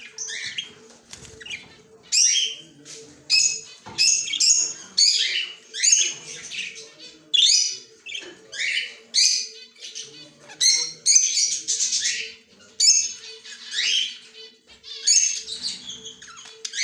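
Green Australian parrot calling in a long string of short, high chattering calls, roughly one a second.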